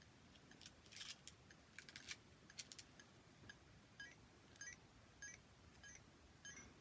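Faint sharp plastic clicks from handling a handheld virtual-pet keychain toy, followed from about four seconds in by its electronic beeps: about five short stepped chirps, roughly every half second.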